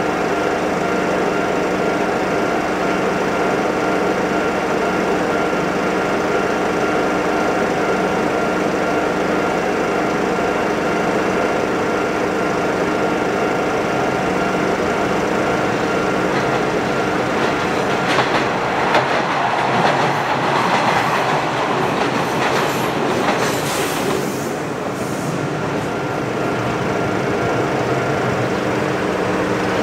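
Electric train running along the line, a steady rumble with rail-joint clickety-clack. It passes close and loudest about two-thirds of the way in, and a different train's running noise follows near the end.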